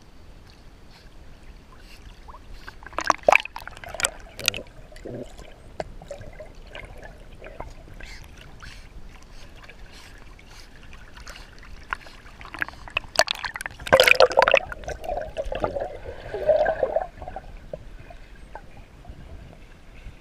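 Pool water lapping and sloshing against a GoPro Hero 3+ in its waterproof housing at the surface, with splashing from a swimming Australian Shepherd paddling close by. Loud bursts of splashing come about three seconds in and again from about thirteen to seventeen seconds.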